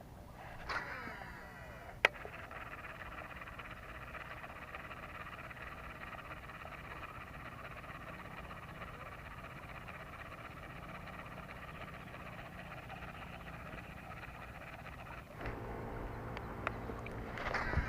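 Steady outdoor chorus of calling frogs and insects, with a brief whirring sweep near the start and again near the end, and one sharp click about two seconds in.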